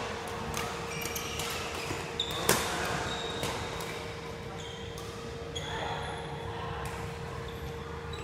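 Badminton hall sounds: scattered sharp smacks of rackets hitting shuttlecocks and short squeaks of shoes on the court mats, over a steady hum. One crisp smack about two and a half seconds in is the loudest.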